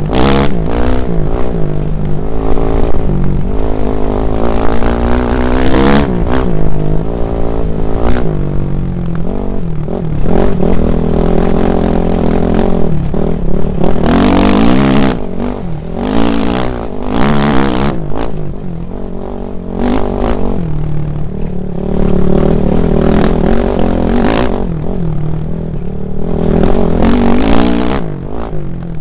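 Dirt bike engine revving hard on an off-road trail, its pitch repeatedly rising under throttle and dropping back through shifts and corners, with a rumble of wind and ground noise underneath.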